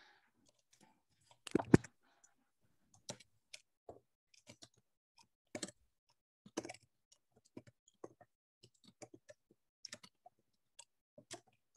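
Scattered, irregular clicks and taps from working a computer's mouse and keyboard. The loudest is a single sharper knock about a second and a half in.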